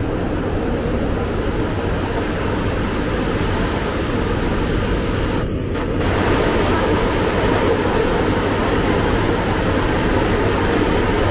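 Heavy rain falling, a steady dense hiss that grows slightly louder from about six seconds in.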